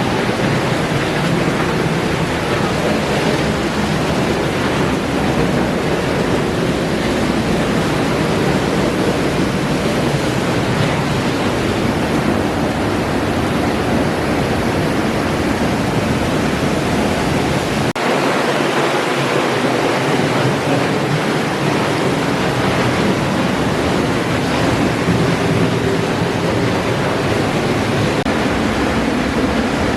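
Waterfall: a loud, steady rush of falling water. The deep part of the rumble thins briefly about two-thirds of the way in.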